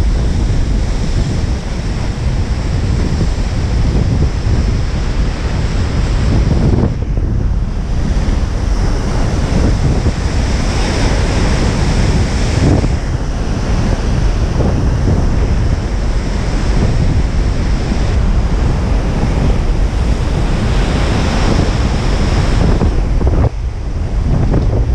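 Strong wind buffeting the microphone over the rushing noise of heavy breaking surf, steady throughout, with a faint steady high whine above it.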